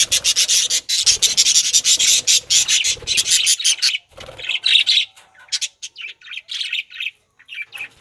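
A flock of budgerigars chattering: a dense, scratchy run of rapid chirps for the first half, thinning to separate chirps with short gaps after about four seconds.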